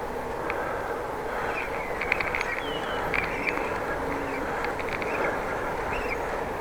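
Steady rolling and wind noise of a bicycle ride, with short high chirps and squeaks scattered through it, a few a second at times. The rider himself could not tell whether this chirping came from his bike or from birds singing.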